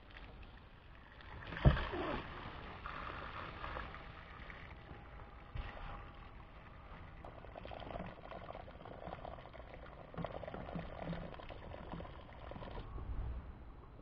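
Water splashing and sloshing while a pool pump hose and its fitting are handled, with one sharp knock about two seconds in.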